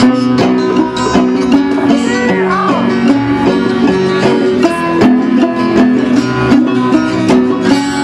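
Plucked string instruments playing the sea shanty's accompaniment in an instrumental break between sung verses, with a steady rhythm and repeated plucked notes.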